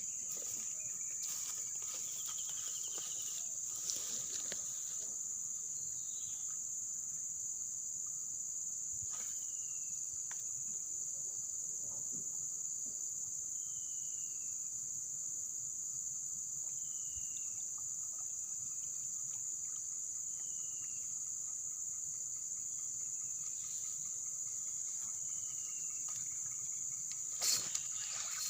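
Steady, high-pitched drone of insects, like crickets, with a short falling chirp repeating every two to three seconds over it. There are a couple of brief knocks, one about four seconds in and a louder one near the end.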